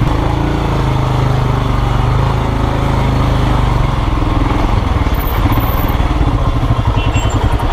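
Royal Enfield Himalayan's 411 cc single-cylinder engine running steadily at low revs as the motorcycle crawls through stop-and-go traffic.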